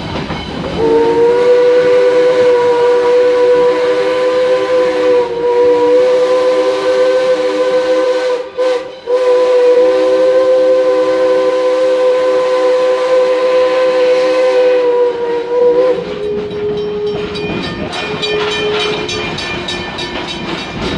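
Steam locomotive whistle sounding a loud, steady chord in two long blasts with a brief break between them, heard from the car right behind the tender. Near the end it gives way to a fainter, broken lower tone over the clatter of the train running on the rails.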